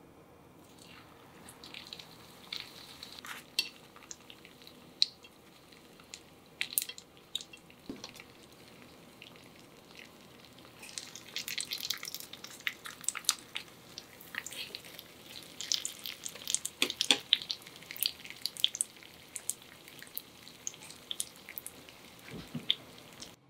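Spring rolls frying in hot oil, sizzling with irregular crackling pops that grow thicker about halfway through.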